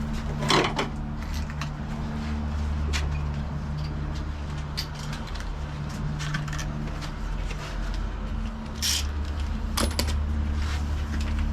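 Scattered small metallic clinks and rattles of parts and tools being handled, the loudest about half a second in, over a steady low mechanical hum.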